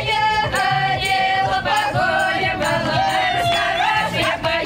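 A Russian folk ensemble, mostly women's voices, singing a folk song together in full voice, with long held notes. A tambourine taps along.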